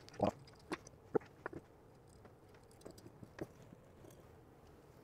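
Light, scattered clicks and taps of small metal hardware as the phone mount arm is screwed onto a BuiltRight metal dash mount bracket with a hand screwdriver and the parts are handled: several clicks in the first second and a half, then a few fainter ones about three seconds in.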